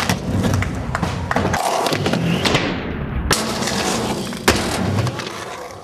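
Skateboard wheels rolling on concrete, with sharp clacks and thuds as the board pops and lands, several times. The sound fades out near the end.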